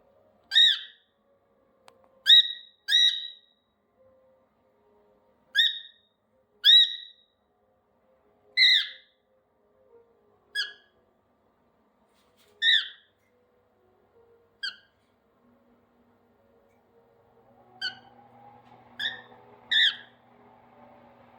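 Cockatiel giving about a dozen short, loud whistled calls, one every second or two, some with a quick upward slide.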